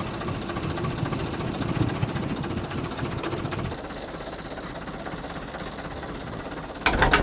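Tractor diesel engine idling with a low, uneven knocking, which drops a little in level before four seconds in. A louder, noisier sound comes in suddenly near the end.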